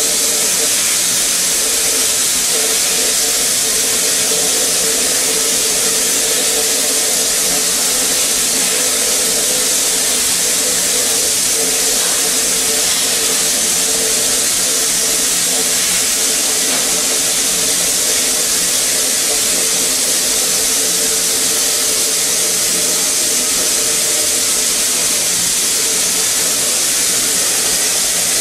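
A small, 116-year-old steam locomotive letting off steam as it stands: a loud, steady hiss of escaping steam, with a faint steady tone underneath.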